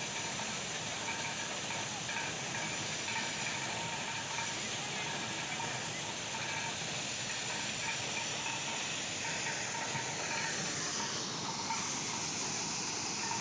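Maize thresher running steadily, a continuous rushing hiss with a faint steady whine over it.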